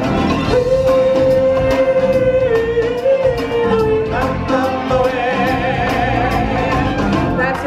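A live stage singer holds one long note for about three seconds over full backing music, then carries on singing.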